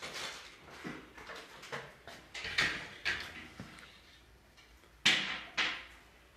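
Scattered knocks, bumps and rustles of objects being handled and moved about, with a sharp clatter about two and a half seconds in and the loudest pair of knocks about five seconds in.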